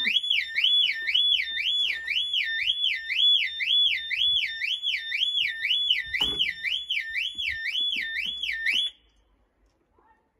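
Vauxhall Tigra's alarm siren wailing, set off by disconnecting the battery negative terminal. It is a loud rising-and-falling tone at about two and a half sweeps a second, and it cuts off suddenly about nine seconds in.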